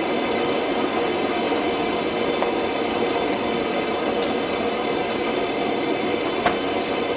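Gas burner running under a carbon steel wok, a steady even rushing hiss.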